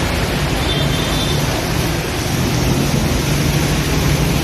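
A truck's engine running low and steady as it drives through floodwater, under a continuous rushing wash of noise.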